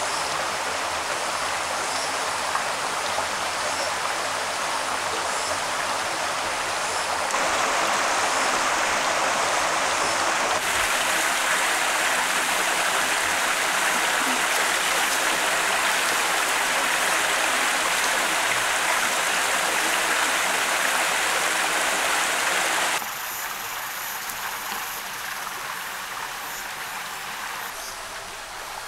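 Rocky mountain stream running, a steady rush of water. It steps abruptly louder about seven seconds in and abruptly quieter near the end.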